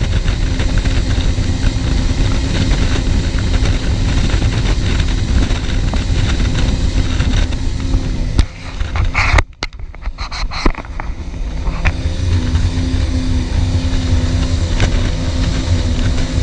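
Performance powerboat running at speed: a steady engine rumble mixed with rushing wind and water. About nine seconds in the sound briefly drops away, broken by a few sharp knocks, then the rumble returns.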